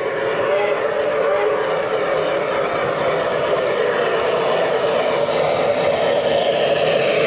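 Lionel Legacy Camelback 4-6-0 O-gauge model steam locomotive running on three-rail track, its onboard sound system playing steam-engine sounds over the rolling of the wheels; a whistle tone dies away right at the start.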